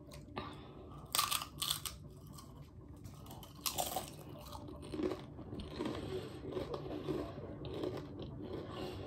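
A Doritos tortilla chip bitten and chewed close up: a few loud crunches in the first four seconds, then steady softer chewing.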